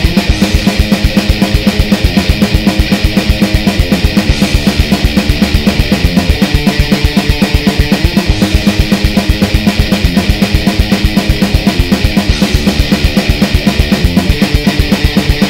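Background music: a sertanejo track with a fast, steady drum-kit beat of bass drum, snare and cymbals.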